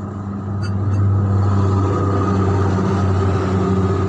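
Truck engine running steadily with a low, even hum, getting louder about a second in and then holding.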